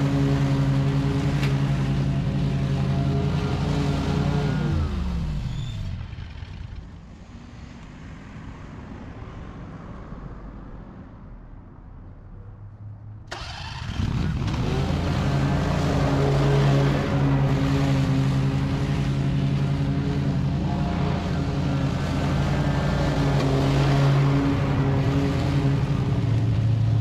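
Stand-on commercial mower's engine running at steady speed with the blades cutting tall, dry grass. Midway the sound falls away into a quieter, muffled stretch for several seconds, then comes back suddenly at full volume.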